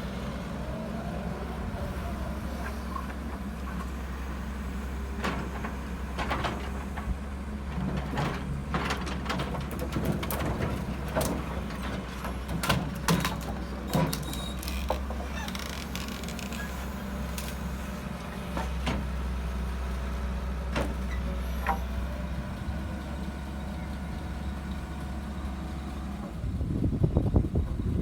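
A steady low engine drone with scattered knocks and rattles over the middle stretch; the drone gives way to a rougher, louder low rumble near the end.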